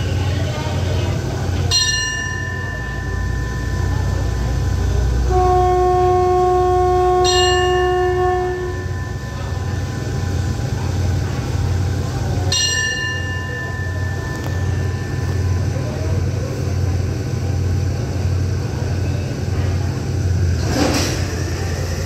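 Diesel-electric locomotive idling with a steady low rumble, while a hand bell is struck three times about five seconds apart, each stroke ringing on and fading slowly. Between the first two strokes the locomotive sounds its horn for about three seconds.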